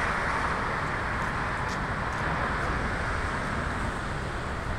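Steady roar of storm surf breaking on the shore, an even rushing noise with a low rumble underneath.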